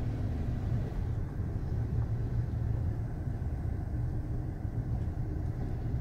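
Steady low engine and road rumble inside the cab of a 1998 Dodge 2500 pickup as it drives.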